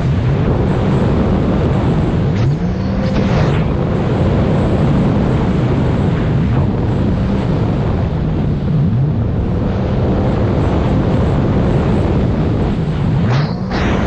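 Jet ski engine running under way, with wind on the microphone. Its pitch drops and then climbs back up twice, about two and a half seconds in and again near the end, as the throttle is eased and opened again.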